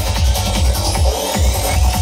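Trance-style electronic dance music from a DJ set over a stage sound system: a steady kick drum and bass line, with the bass dropping out briefly just after a second in while a rising sweep climbs in the treble.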